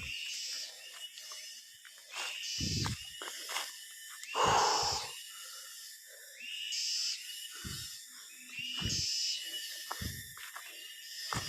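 Outdoor wildlife sounds: short animal calls repeating every second or so, with several low thumps and a louder rustle about four and a half seconds in.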